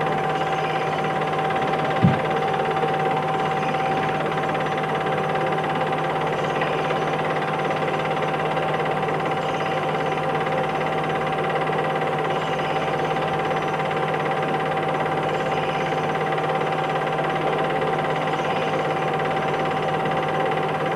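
Steady machine-like hum and hiss with a constant high whine and a single click about two seconds in: the running background noise of a silent 1950s home-movie transfer, with no live sound from the scene.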